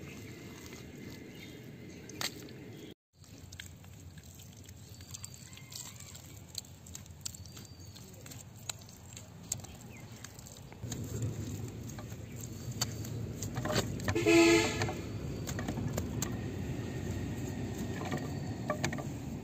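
Bare hands packing and smoothing wet mud, with soft squelches and slaps. About eleven seconds in a low rumble rises, and about fourteen seconds in comes one short, loud pitched honk.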